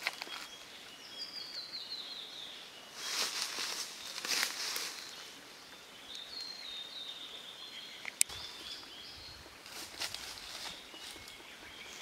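Japanese green woodpecker excavating its nest hole in a tree trunk, with bursts of scraping and chipping and a single sharp tap about eight seconds in. Another small bird twice sings a short run of high falling notes.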